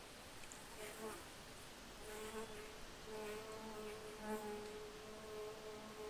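A flying insect buzzing: a steady hum that starts about a second in and swells and fades as it moves about.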